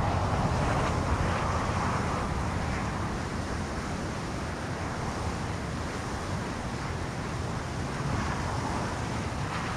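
Wind buffeting the microphone of a crashed drone's camera lying in grass: a steady rushing noise with a low rumble, easing slightly.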